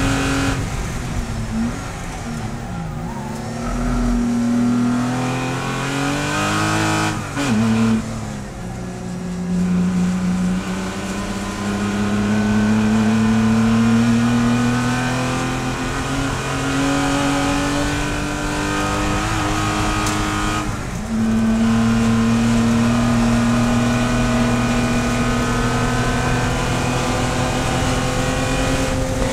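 In-car sound of a Porsche Spec Boxster's flat-six racing engine at high revs. It drops in pitch under braking, with a downshift about seven seconds in. It then climbs steadily under full acceleration and shifts up about twenty-one seconds in before pulling again.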